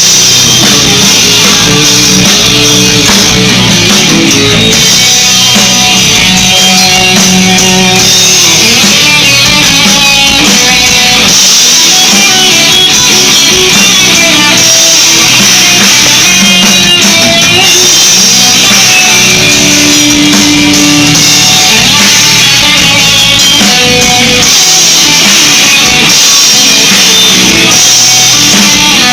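Rock band playing live, an instrumental stretch between sung lines, with guitars and drum kit.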